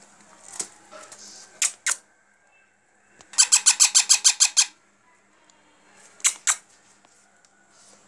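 Parakeet chick squawking: two short harsh calls, then a rapid run of about ten chattering squawks, then two more short calls.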